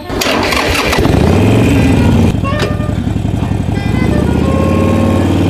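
A Harley-Davidson motorcycle's V-twin engine is started: it cranks and catches within the first second, revs up, then drops back to a steady idle a little over two seconds in.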